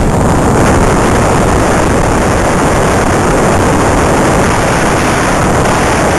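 Loud, steady rush of wind and road noise picked up by an onboard camera riding on an RC touring car at racing speed.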